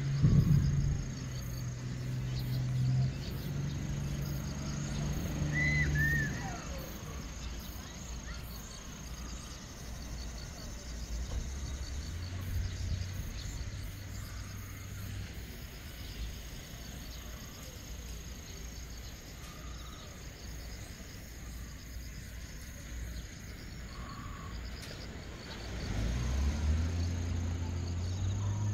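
Steady outdoor drone of insects calling in summer heat. Under it runs a low hum that comes and goes, strongest near the start and near the end, and a short high chirp sounds about six seconds in.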